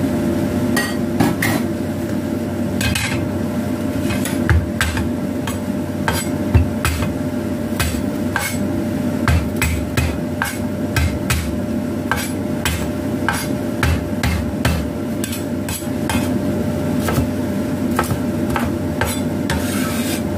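A cleaver chopping garlic cloves on a wooden cutting board: irregular, sharp knocks of the blade against the board, about one to three a second, over a steady low hum.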